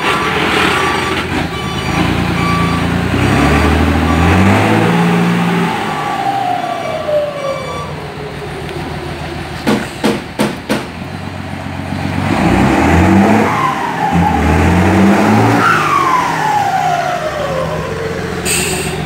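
Mercedes-Benz 1618 dump truck's turbo-diesel engine pulling away twice, rising in revs each time. A whistle fitted to the turbocharger sings over it in a gliding tone that falls in pitch as the revs drop. A quick run of sharp clicks comes about ten seconds in.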